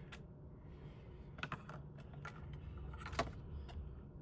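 Light clicks and taps of small plastic parts and wires being handled while a CPAP machine is taken apart, about six scattered clicks with the loudest a little after three seconds in.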